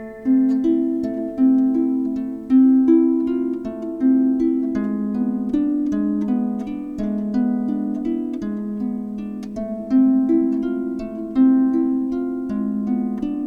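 Harp music: a steady stream of plucked, ringing notes in a repeating lower figure, with higher notes over it.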